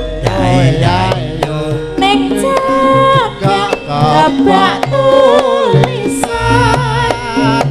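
Javanese gamelan ensemble playing a Sragenan-style piece: hand-drum strokes and ringing metallophone notes under a singing voice with a wavering pitch.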